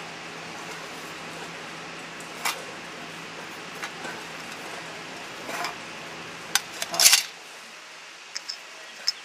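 Tin cans and a metal stove windscreen being lifted and set down, giving scattered metallic clinks and knocks, with the loudest cluster about seven seconds in, over a steady hiss.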